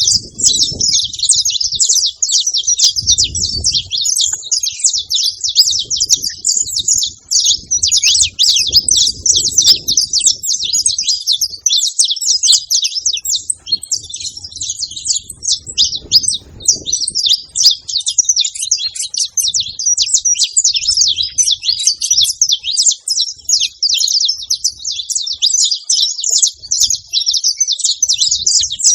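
Saffron finches chirping and singing without pause, a dense, rapid stream of high, sharp notes.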